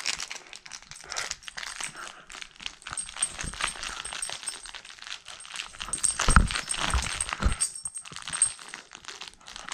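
Beagle puppy tugging at a rope toy, with small metal jingling and clinking from its collar and scuffling throughout. A few heavier thumps come about six to seven and a half seconds in.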